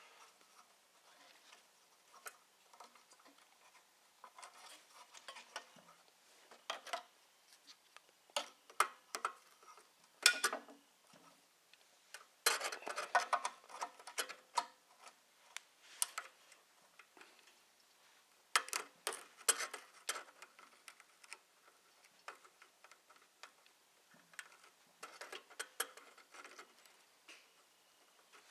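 Scattered small metallic clicks, taps and clinks of hand tools and small parts being handled on a snowblower, irregular and light, with busier clattering stretches about halfway through and again about two-thirds in.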